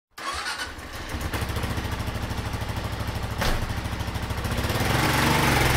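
Motorcycle engine running with an even pulsing beat, then revving up a little about five seconds in; a brief click about three and a half seconds in.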